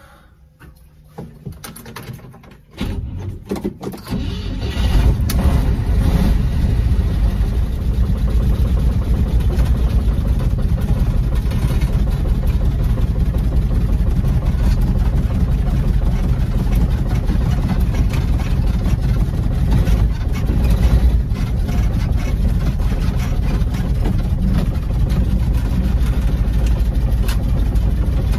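1957 Chevy Bel Air's straight-six engine starting about three seconds in, after a few clicks, then running steadily with a low rumble.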